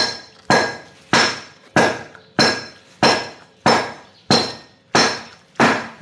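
A hard, ringing object struck about ten times in a steady rhythm, a little under two strikes a second, each strike ringing briefly before the next.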